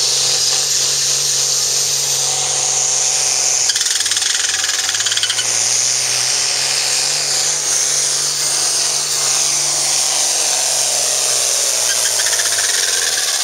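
Hot farm class pulling tractor's diesel engine running hard at full throttle under load from the sled. The engine note dips about four seconds in, then climbs again, and falls away near the end.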